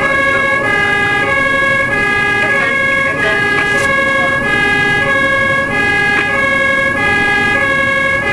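German fire engine's two-tone siren (Martinshorn) sounding continuously over the running engine and road noise of the vehicle under way. The siren alternates steadily between a lower and a higher pitch, with a steady high whine running underneath.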